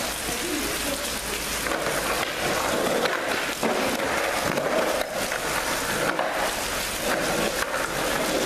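Skateboard wheels rolling on concrete, with a few sharp clacks of the board.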